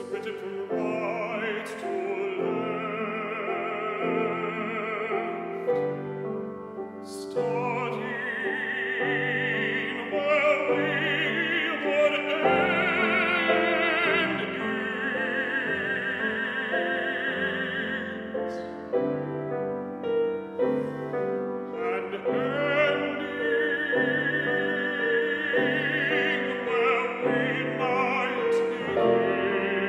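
Bass-baritone singing a classical art song with vibrato over grand piano accompaniment, the piano sounding repeated low notes. The voice pauses for a few seconds past the middle while the piano plays on alone.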